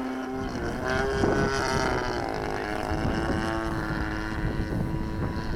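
Radio-controlled model airplane's engine running in flight, its pitch shifting up then down and then holding steady as it throttles and passes, with wind buffeting the microphone.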